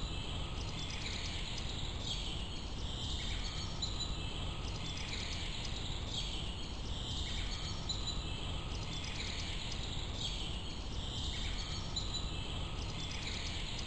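Outdoor ambience: a high-pitched chirping call repeating about once a second, over a steady low rumble.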